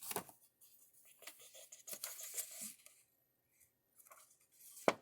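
Paper and packaging rustling softly as a package is unwrapped by hand, with a sharp click near the end.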